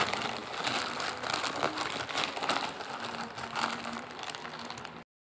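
Plastic courier mailer bag crinkling as it is handled, in quick irregular rustles; it cuts off abruptly shortly before the end.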